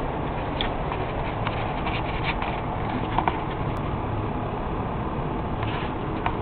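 A cat pawing and biting at the camera: scattered soft taps and rustles of fur against the microphone, over a steady background hiss.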